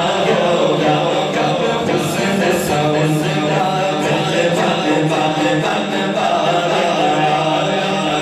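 A man's voice chanting an unaccompanied Islamic devotional recitation (naat) into a handheld microphone, amplified through a PA system, in long held, melismatic lines.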